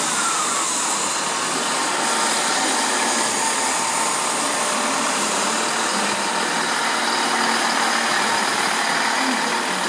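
Diesel multiple unit moving along the track, its engine and wheels making a steady running noise, with a brief falling squeal in the first second.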